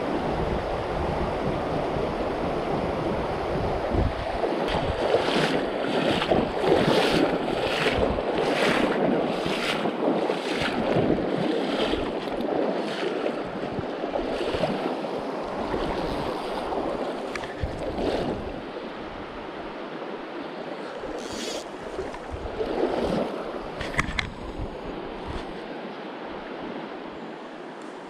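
Mountain river water flowing steadily, with wind on the microphone. Between about five and twelve seconds in there is a regular run of short noises, somewhat under two a second.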